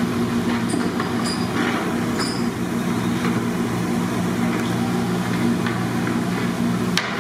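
A steady low mechanical hum, with a few light clinks and scrapes of a long metal ladle stirring in a large steel pot of simmering mutton broth, and one sharper clink near the end.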